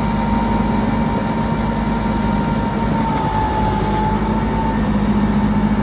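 Jet fuel truck's engine running steadily with its pump clutch engaged: a constant drone with a thin whine on top. The whine dips slightly in pitch about three seconds in and comes back near five seconds.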